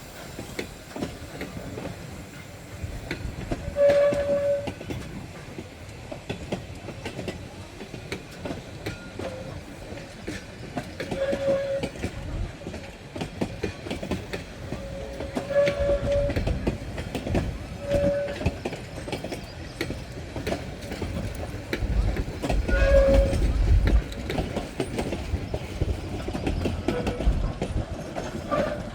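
Heritage train rolling past with a low rumble, its wheels clicking over the rail joints. Short high squeals come every few seconds, and the rumble swells near the end.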